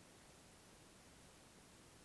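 Near silence: a faint, even hiss with no distinct sound in it.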